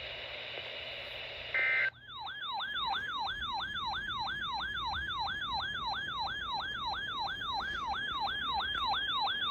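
Electronic siren-like alert tone: a short steady beep, then a rapidly repeating falling sweep, about three a second, that sounds ahead of the tornado warning broadcast.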